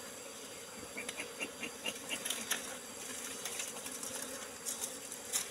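Swarm of wild honeybees buzzing steadily around their opened nest as the comb is being cut out. About a second in comes a short run of quick high chirps.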